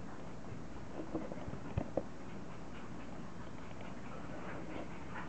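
English bulldog puppies playing, with a few short, sharp puppy noises and knocks between about one and two seconds in over a steady background hiss.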